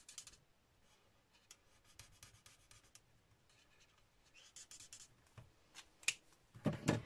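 Bullet tip of an alcohol marker scratching on cardstock in short, faint colouring strokes, with a louder knock near the end as the marker is set down.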